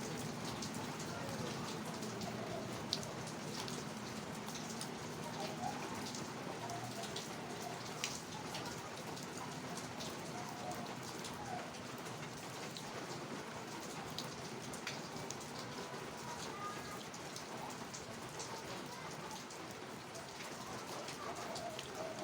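Steady rain, an even hiss with scattered sharp drop hits.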